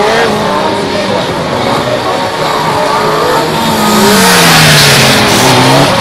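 Sport motorcycle engine revving up and down as the bike weaves through tight cone turns, its pitch rising and falling with each throttle change. It grows louder about four seconds in as the bike passes close, then winds down in a long falling note.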